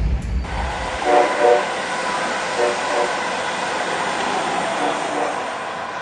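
Train air horn sounding short blasts in pairs, three pairs in all, each blast a chord of several notes, over the steady rushing noise of a passing train.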